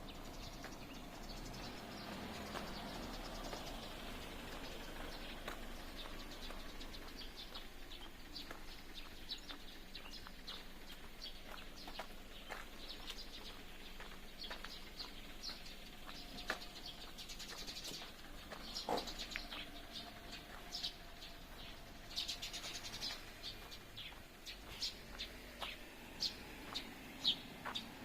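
Small birds chirping: many short, scattered high chirps over faint steady background noise, with a few louder ones in the second half.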